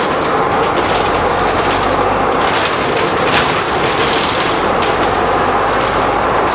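Bristol VR double-decker bus on the move, heard from inside: steady engine and drivetrain noise with frequent rattles from the body and fittings.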